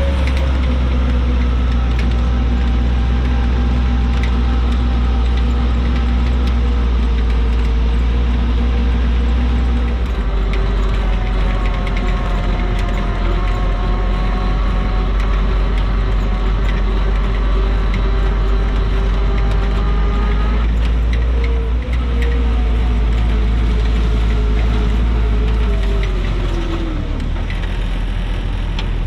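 A flat-fender Willys Jeep's four-cylinder engine running steadily under load, with scattered clicks and rattles. The engine note shifts about ten seconds in and again about two-thirds of the way through, then falls away near the end.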